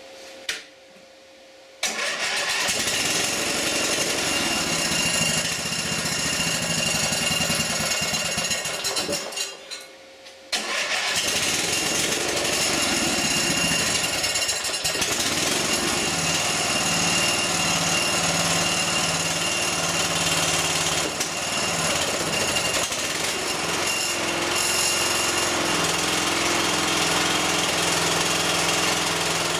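Small lawn-tractor engine catching about two seconds in and running. It cuts out briefly around nine seconds, then starts again and runs steadily to the end.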